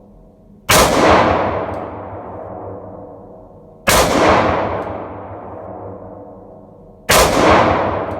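.38 Special revolver fired three times, about three seconds apart, each shot followed by a long fading echo.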